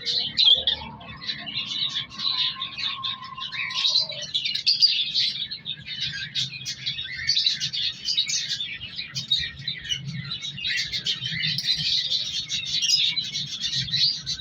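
Cockatiels chirping in a busy, continuous stream of short chirps, with a steady tone held for about three seconds near the start.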